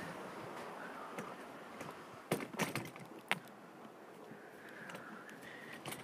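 A handful of sharp clicks and knocks in quick succession, a little over two seconds in, as the phone is handled and set in place, over a light steady hiss of wind.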